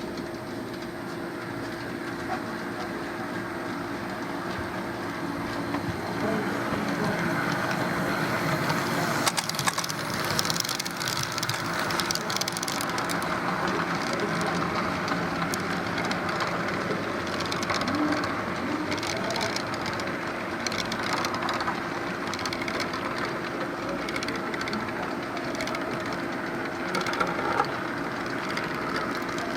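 Model train running on the layout track: a steady hum under a dense crackle of small clicks from the wheels on the rails, louder from about a quarter of the way in.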